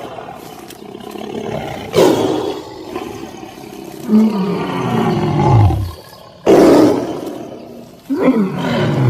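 Tiger roaring: four roars about two seconds apart, each sliding down in pitch, the second one long and drawn out.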